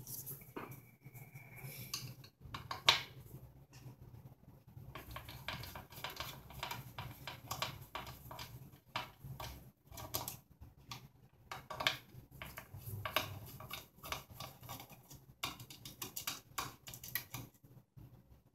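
Irregular clicks and light metallic clinks of a screwdriver working the ground screws and handling small parts and wires in an aluminium surge-protector case. A brief steady tone sounds about a second in.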